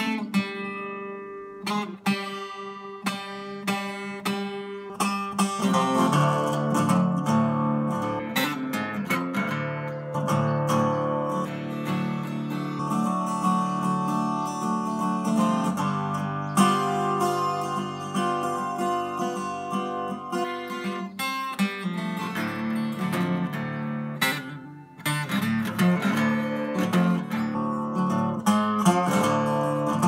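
Seagull 12-string acoustic guitar with a spruce top being played solo: picked notes at first, then fuller strummed chords from about six seconds in, with a brief drop in loudness a little past twenty seconds before the playing picks up again.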